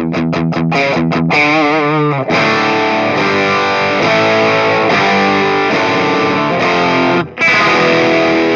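Distorted electric guitar played through the Flatsons KE1 multi-effects pedal's "JVM 900" amp model. Short choppy chords, about four a second, stop just after a second in. A held note with wide vibrato follows, then ringing chords, with a brief stop near the end before one more chord.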